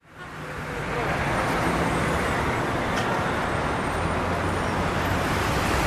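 Steady city street traffic noise, fading in over the first second.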